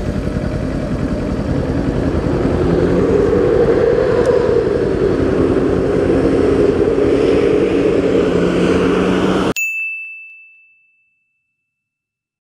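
Motorcycle engine running in traffic with steady engine tones, from a Kawasaki Z400 among the surrounding vehicles. About nine and a half seconds in it cuts off abruptly, and a single bright ding rings out and fades away.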